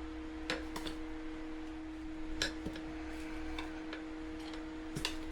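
Metal tire irons clicking and tapping against the wheel rim as the tire is pried off, a handful of separate sharp ticks at uneven spacing. A steady hum runs underneath.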